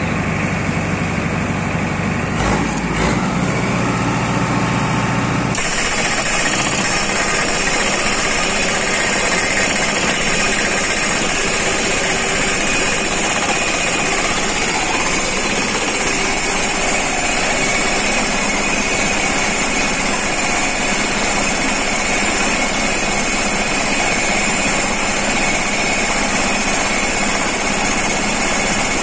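Tractor-mounted hydraulic post driver hammering a steel crash-barrier post into the ground, a loud, continuous pounding over the running tractor engine.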